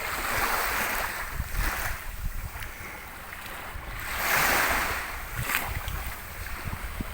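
Ocean waves washing in on the shore, surging twice, near the start and again about four seconds in, with wind buffeting the microphone.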